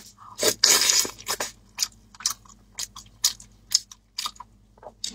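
Close-up mouth sounds of a person biting and chewing pork knuckle skin and meat: a quick run of bites and chews in the first second and a half, then slower, scattered chewing clicks.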